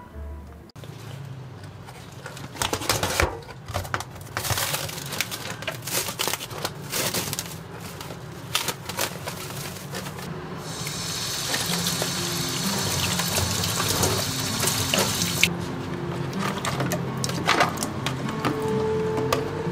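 Plastic wrap crinkling and rustling as a supermarket tray of meat is unwrapped. About halfway through, a kitchen tap runs steadily for about five seconds, and it ends with scattered clicks and knocks as ribs are handled into a pot.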